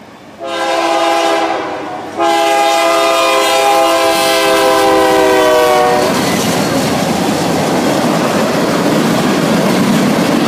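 A freight locomotive's air horn sounds a shorter blast, then a long one whose pitch sags slightly near its end as it passes: the closing short-long of a road-crossing signal. Then the locomotive and the ethanol tank train go by with a loud, steady rush of engine and wheel noise.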